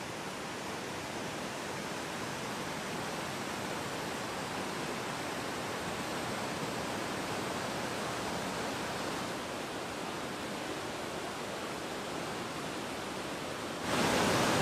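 Rushing whitewater of river rapids: a steady, even rush of water that jumps suddenly louder near the end, close to the churning water.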